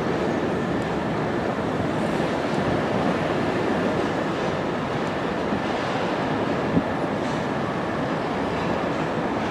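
A train running on the rails, giving a steady noise, with a single sharp click about seven seconds in.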